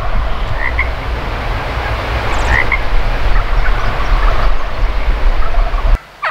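Strong wind buffeting the microphone with a heavy low rumble, and a few faint short chirps in it. The rumble cuts off abruptly near the end.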